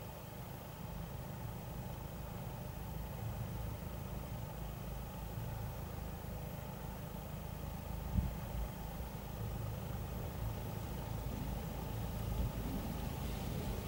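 A car engine idling steadily with a low rumble, and a single short knock about eight seconds in.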